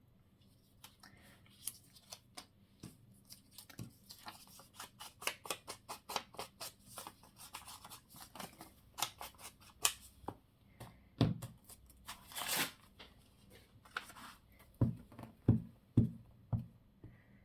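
Paper-crafting handwork at a desk: a long run of quick small clicks and paper rustles, then from about eleven seconds in a series of separate low knocks, like pieces being pressed or tapped down.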